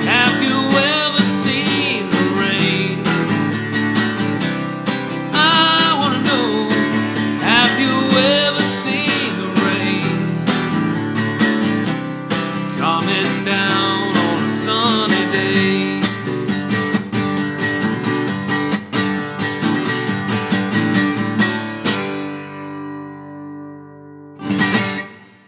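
Acoustic guitar strumming with a wavering melody line over it, the instrumental close of a song. The music ends on a chord that rings out about 22 seconds in, and there is one short burst of sound near the end.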